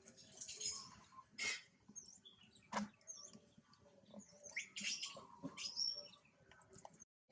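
Small birds chirping faintly, short high calls scattered throughout, with a few soft clicks and a sharper click about three seconds in.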